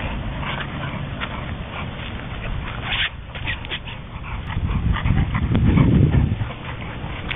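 Two bulldogs playing rough on grass, making dog noises as they chase and wrestle. A louder low rumble comes about five to six seconds in.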